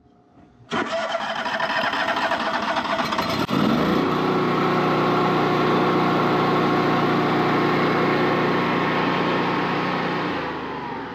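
Kohler home standby generator's engine being cranked by its starter on a freshly fitted 12-volt battery. It catches after about three seconds and runs steadily, then winds down with falling pitch near the end. It starts normally now that the dead battery has been replaced.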